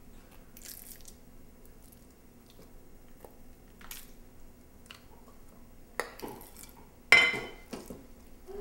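Raw pork chops being forked off a plate into a slow cooker's stoneware crock: faint soft, wet handling sounds of the meat, then two sharp clinks of the metal fork on ceramic about six and seven seconds in, the second the louder.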